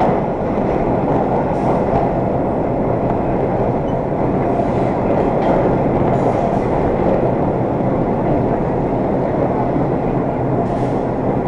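Steady running rumble of a 1920s IRT Low-V subway car in the tunnel, heard from inside the car.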